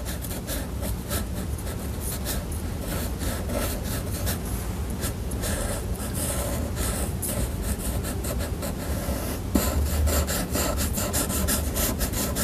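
Black marker nib scratching across paper in quick, repeated hatching strokes as the lines of a branch are inked, with a single knock late on.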